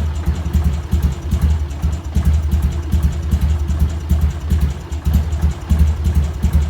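An engine idling: a low rumble that pulses unevenly.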